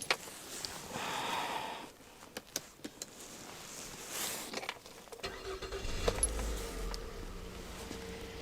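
Light handling clicks and rustles, then about five seconds in the Mazda's 2.0 LF four-cylinder engine is started and settles into a steady idle, running on flushing oil.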